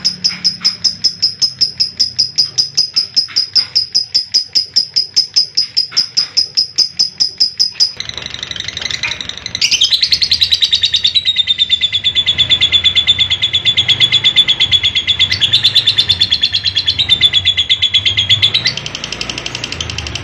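Lovebird doing its long 'ngekek' chatter: a fast run of loud, high, rapidly repeated calls, about five a second, for roughly eight seconds, then after a short break a second long, even faster, slightly lower trill that stops abruptly near the end.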